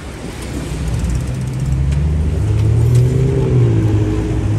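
A motor vehicle's engine running close by, a low hum that grows louder over the first few seconds, with its pitch dipping and rising slightly near the middle.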